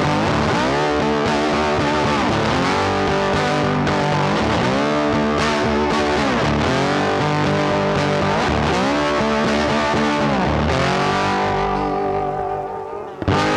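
Background music led by a distorted electric guitar, with notes that bend and slide in pitch. It dips briefly near the end before a new chord strikes in.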